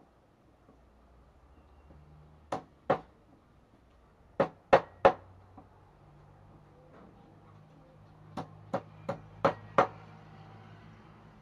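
Meat cleaver chopping raw quail on a round wooden chopping block: ten sharp knocks in three groups, first two, then three, then five quicker ones near the end.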